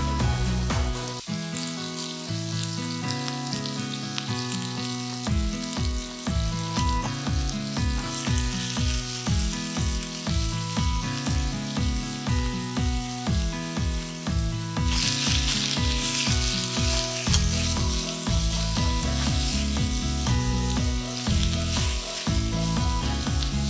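Food frying with a steady sizzle that grows markedly louder about fifteen seconds in, under background music with a regular beat.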